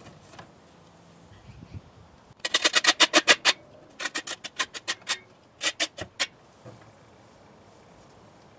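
Broom sweeping a shed floor in quick, short, scratchy strokes, about ten a second, in three bursts: two of about a second each, then a shorter one.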